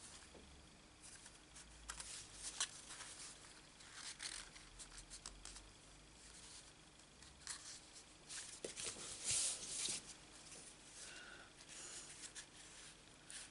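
Faint rustling and rubbing of cardstock as layered card panels are handled and pressed together, with short scrapes scattered throughout and a louder stretch about nine seconds in.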